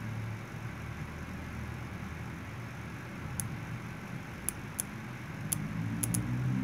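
Bicycle rear cassette being turned by hand, giving about six light, irregular clicks in the second half, over a steady low hum.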